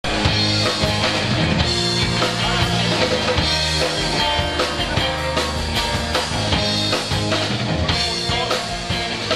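Live rock band playing loud, with electric guitars and a drum kit keeping a steady beat.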